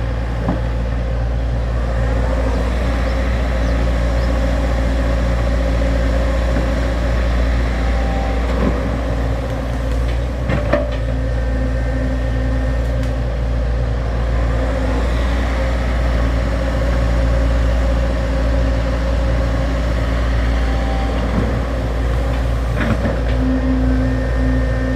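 XCMG XE75G excavator's diesel engine running steadily under working load while it digs, with a few sharp knocks along the way.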